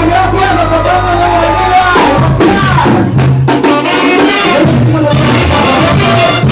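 Loud music with a singing voice over a bass line.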